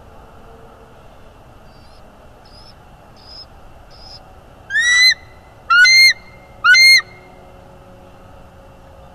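Bald eagle calling: four faint, short high chirps, then three loud, piercing calls about a second apart, each rising then dropping in pitch, over a steady background hiss from the nest-cam microphone.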